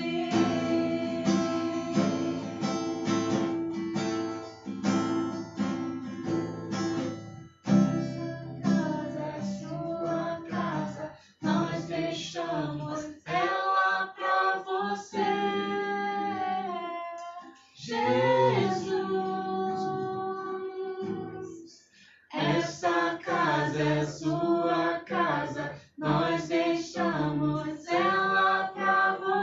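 Acoustic guitar strummed as accompaniment to singing of a worship song, with a woman's voice leading.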